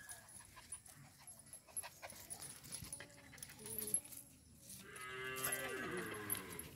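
Small dog whimpering and whining in short faint bursts, then a longer, louder whine that falls in pitch near the end.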